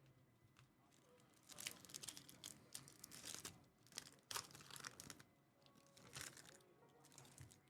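Crinkling and tearing of a trading-card pack wrapper being handled and opened, in a run of crackles from about a second and a half in until about five seconds, with a few smaller rustles near the end.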